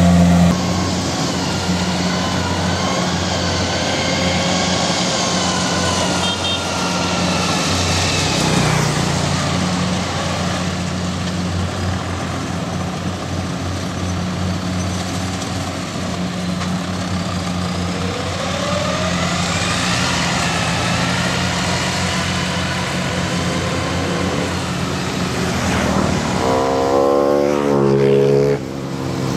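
Kubota DC-70 Plus combine harvester's diesel engine running steadily with machinery clatter. Its pitch sags and recovers a few times, and near the end the engine note rises and falls quickly.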